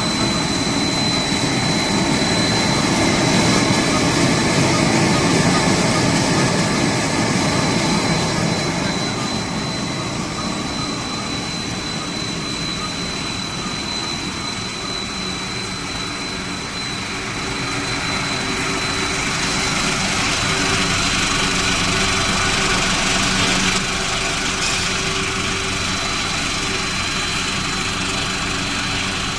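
Snack food extrusion production line running: steady machinery whir and hum with a constant high-pitched whine over most of it.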